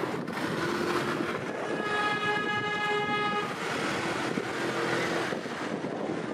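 City street traffic noise with vehicle horns. One horn is held for about a second and a half in the middle, and shorter, lower horn notes sound before and after it.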